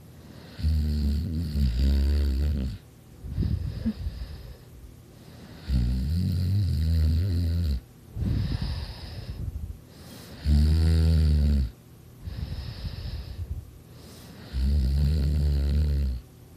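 A sleeping person snoring loudly: four long, low-pitched snores roughly every four seconds, with a shorter, breathy exhale between each.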